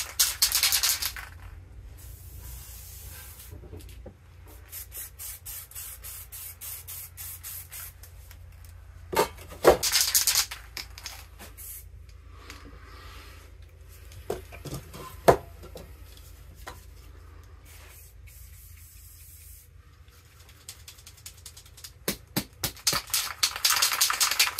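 Aerosol spray paint can being shaken, its mixing ball rattling in rapid bursts at the start, about ten seconds in and again near the end, with quieter hisses of paint spraying in between and a couple of sharp clicks.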